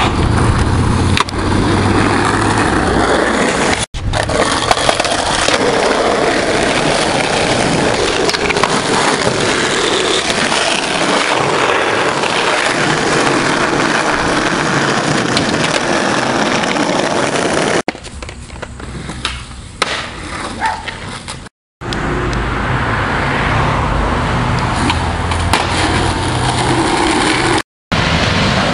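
Skateboard wheels rolling on pavement and ramps, with the sharp clacks of the board being popped and landed. The sound cuts off abruptly several times where clips are spliced together, and is quieter for a few seconds after the second cut.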